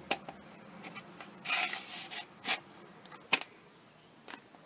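Handling noises as a plastic bottle is slid onto a PVC pipe fitted with an O-ring: scattered light clicks and taps, a short rubbing scrape about a second and a half in, and a sharp click just past three seconds.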